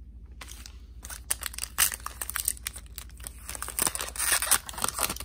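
Foil wrapper of a Topps 2020 Series baseball card pack being torn open and peeled back by hand, crinkling with many sharp crackles that start about half a second in.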